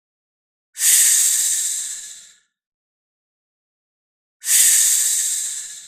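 A snake hissing twice: two loud, sudden hisses, each fading away over about a second and a half, the second coming about three and a half seconds after the first.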